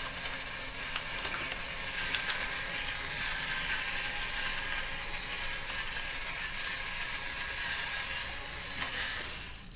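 Battery-powered gravity pepper grinder running while tipped over, its small motor grinding peppercorns with a steady high, hissing grind that stops near the end.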